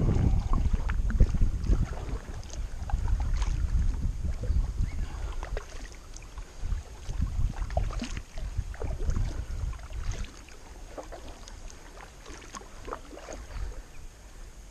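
Kayak paddling: the paddle blades dip and splash, with water dripping and trickling in short irregular ticks, over a low rumble of wind on the microphone. It all grows quieter about two-thirds of the way through.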